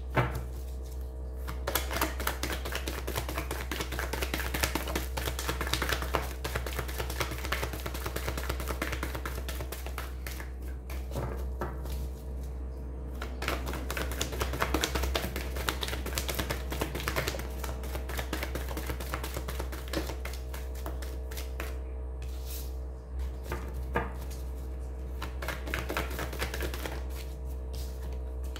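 A deck of oracle cards shuffled by hand: long runs of rapid, dense card clicks with a few short breaks and a longer pause a few seconds before the end, over a steady low hum.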